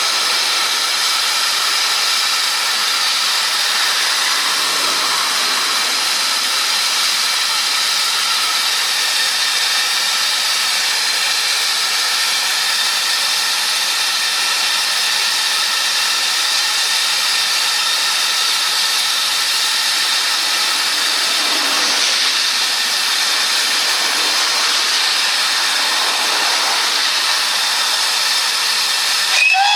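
Steam locomotive letting off steam: a loud, steady hiss. A steam whistle starts to sound right at the end.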